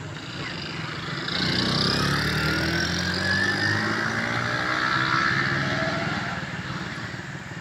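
A motor vehicle driving past on the road. Its engine grows louder from about a second in, holds for a few seconds with its pitch sliding, and fades near the end.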